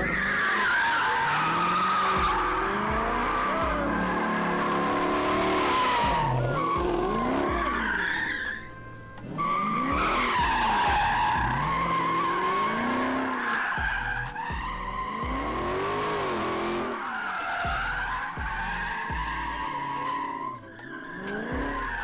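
A car's tires squealing continuously as it spins them, with the engine revving up and down underneath; the squeal eases briefly about nine seconds in and then picks up again.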